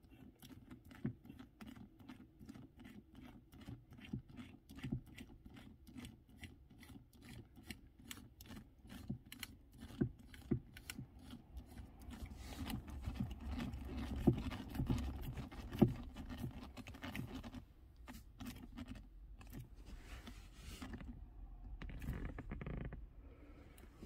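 Replacement gear knob being screwed clockwise by hand onto a Ford Mondeo MK4's threaded gear lever. It gives a faint run of light, even clicks, about three a second, then denser rubbing of hand and knob against the lever boot from about halfway through, with a few sharper clicks, until it is seated.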